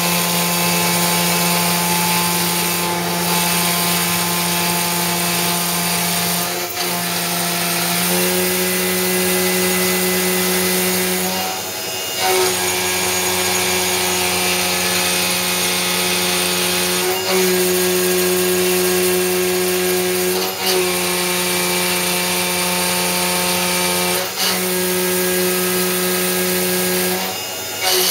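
Belt-drive IH RF-45 CNC milling machine face milling a thick plate with a 5/8-inch two-flute carbide end mill at about 6,000 rpm and close to 100 inches per minute feed. It makes a steady, loud cutting whine with brief breaks and small shifts in pitch every few seconds.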